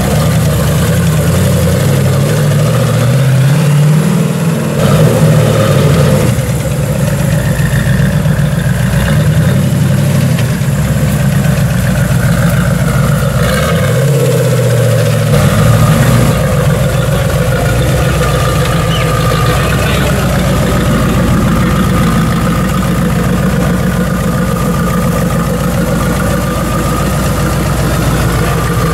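Turbocharged V8 of the Brutus IOUS custom car idling, blipped up twice, about four seconds in and again around fourteen seconds.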